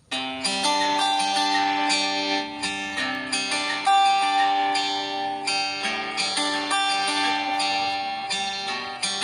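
Background music: an instrumental of plucked strings, a quick run of picked notes over steady held tones.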